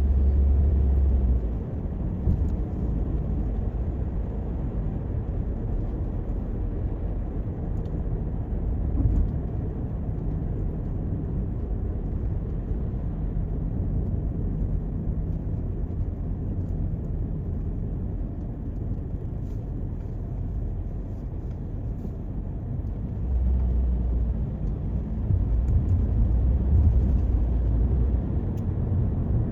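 Road noise of a Toyota Corolla being driven: a steady low rumble of engine and tyres, deeper and louder for the first second or so and again over the last six seconds.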